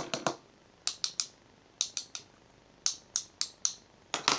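Sharp metallic clicks and clacks, in quick groups of two to four every second or so, from handling the all-metal revolver-magazine fidget spinners.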